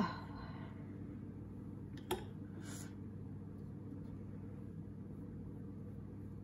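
Steady low hum, with a single light click about two seconds in and a brief soft rustle just after it.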